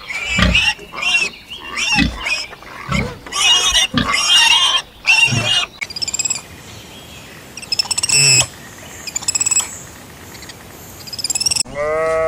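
A series of loud animal calls, about six in the first half. These are followed by fainter, high-pitched calls, and near the end a wavering bleat begins.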